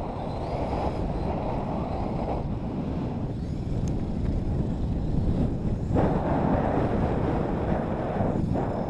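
Wind rushing over the camera microphone of a moving skier, mixed with skis sliding over snow: a loud, rough rush that swells and dips, jumping up sharply about six seconds in.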